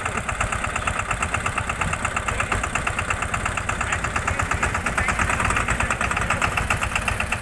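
Massey Ferguson 5118 small tractor's single-cylinder diesel engine running steadily with a rapid, even beat.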